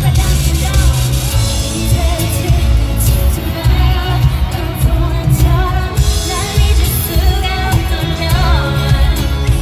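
K-pop girl group singing live on headset microphones over a pop backing track with a heavy, pulsing bass.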